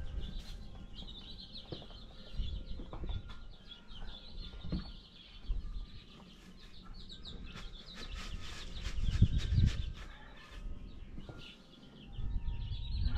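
Baby chicks peeping continuously, many rapid high chirps overlapping. Rustling and bumps of wood shavings and a board being handled in the brooder box come and go, loudest a little past the middle.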